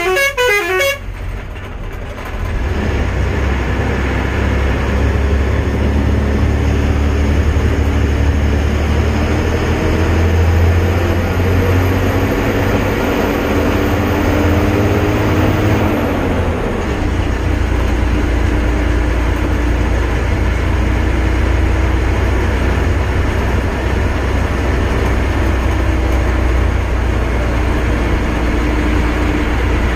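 A moving road vehicle: steady engine and road rumble, with an engine whine that climbs slowly and drops off sharply about 16 seconds in. A horn sounding quick repeated notes cuts off about a second in.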